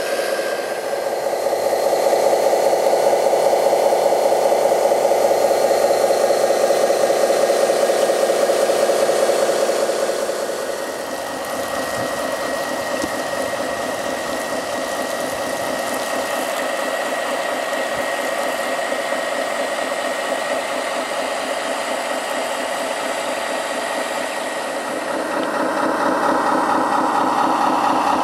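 Radio-controlled model fire trucks running steadily with an engine-like idle and a fast rattling pulse. The sound drops and changes pitch about ten seconds in, then grows louder again near the end.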